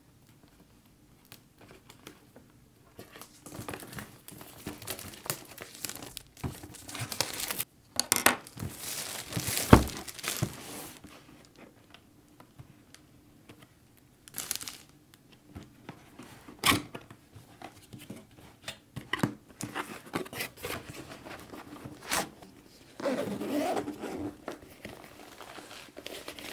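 Plastic shrink-wrap and a cardboard box being cut, torn and crinkled open by hand, irregular rustling broken by sharp clicks and knocks, the loudest about ten seconds in.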